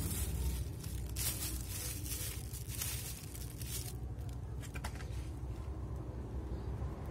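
Clear plastic bag crinkling and rustling as potting mix of cocopeat, soil and burnt rice husk is pressed into it by hand, busiest in the first three seconds. A low steady hum runs underneath.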